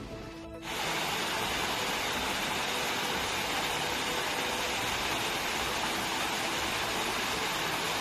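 Small waterfall cascading over rock ledges into a rocky stream: a steady rushing of water that comes in suddenly just under a second in.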